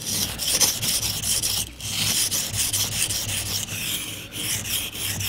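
Steel knife blade stroked back and forth on the wet 1000-grit side of a combination whetstone: a steady run of quick, gritty scraping strokes, with a short pause about a second and a half in. The stone is hard and cuts fast.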